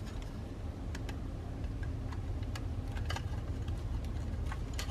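Small, sharp plastic clicks and ticks, a handful spread irregularly, more of them near the end, as white styrene model kit parts are handled and snapped together. A steady low rumble sits underneath.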